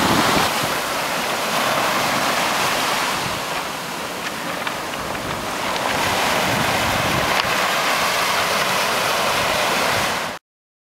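Small ocean waves breaking and washing up over a pebble beach, a steady wash of surf, with wind buffeting the microphone. The sound cuts off abruptly near the end.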